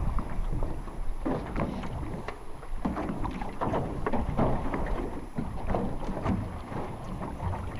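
Small waves lapping and slapping against the side of a small boat in quick, irregular splashes, over a low rumble of wind on the microphone.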